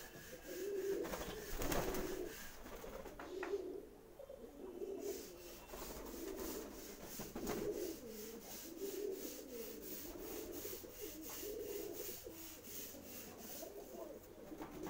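Domestic pigeons cooing in the loft, low throaty coos repeating about once a second. About one to two seconds in there is a louder patch of rubbing and knocking.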